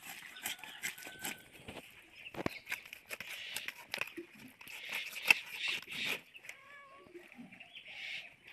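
A large katla fish being cut on an upright boti blade: a run of crunching clicks and scrapes as the blade goes through scales, skin and bone, the sharpest about five seconds in. Faint bird calls can be heard near the end.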